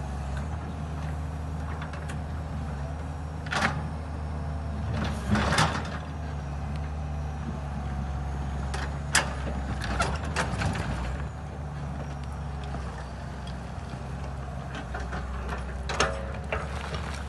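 Long-reach excavator's engine running steadily, with a few sharp knocks and clatters from the working machine: one about three seconds in, a cluster around five seconds, more around nine to ten seconds and one near the end.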